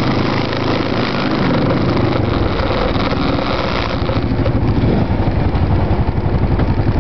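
Arctic Cat 650 ATV engines running at low trail speed: the camera-carrying 650 H1 and a 650 V2 that rides up and passes close by about four seconds in. After it passes, the engine sound settles into a steady pulsing beat.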